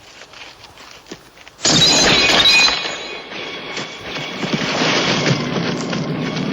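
A few faint clicks, then about a second and a half in a sudden loud crash that rings and crackles on in a long, dense clattering tail.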